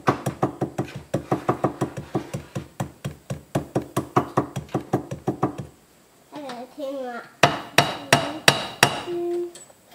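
Small body hammer tapping quickly and lightly, about seven taps a second, on gasket material laid over a cast compressor crankcase to mark out the bolt holes. After a short pause, about six harder strikes come near the end.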